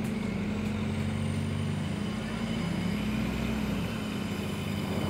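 Minibus engine running as the bus drives along, heard from inside the passenger cabin as a steady low hum. A faint high whine rises and then falls away through the middle.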